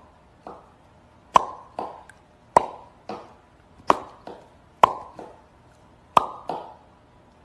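A series of sharp, hollow pops, about a dozen, each with a brief ringing note. They often come in pairs, a loud pop followed by a softer one, roughly one pair a second.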